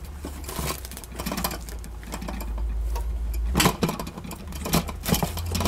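Plastic clicks and light crinkling as a food processor's lid is fitted and locked onto a bowl covered with plastic wrap, with a few sharper clicks about three and a half seconds in and again near the end. A low steady hum runs underneath.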